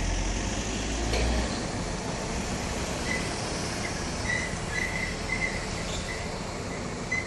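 Steady outdoor background noise with a low rumble for the first second and a half. From about three seconds in, a run of short, high chirps repeats.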